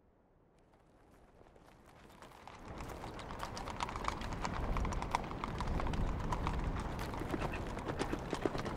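Several horses' hooves clip-clopping on a dirt street, fading up from near silence over the first three seconds into a dense, uneven run of hoofbeats.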